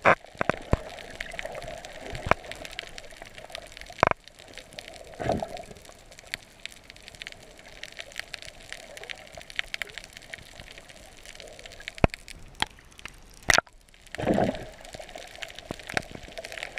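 Underwater sound picked up by a camera in its waterproof housing: a steady muffled hiss with scattered sharp clicks. There are two short rushes of bubbling water, about five seconds in and again near the end.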